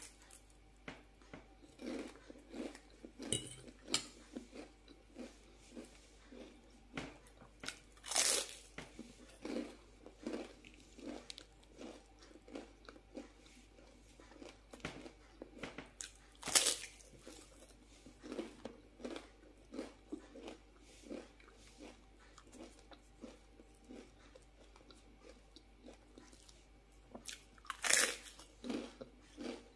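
Crunchy bites into a puffed rice cake spread with mashed avocado: three loud bites spaced several seconds apart, with crisp crunching as it is chewed in between.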